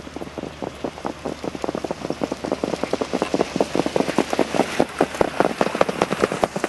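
Hoofbeats of several trotting harness horses on a sand track, a fast, overlapping patter that grows louder as the horses and sulkies come past.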